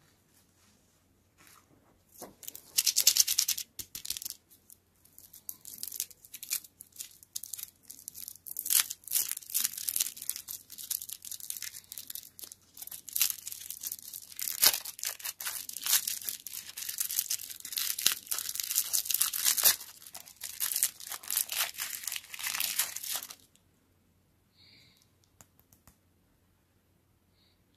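A small lollipop's wrapper being crinkled and torn off by hand: a dense run of crinkling and tearing that starts about two seconds in and stops a few seconds before the end.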